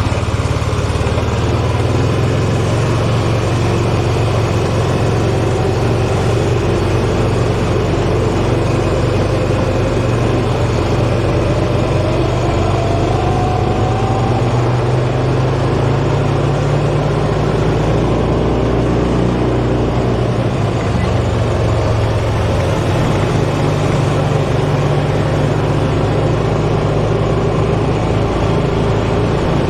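A heavy engine running steadily, its pitch shifting slightly now and then.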